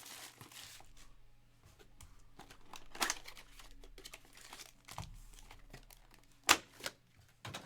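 Plastic wrapping crinkling and rustling as it is handled, with a sharper crackle about three seconds in and a louder sharp one near the end.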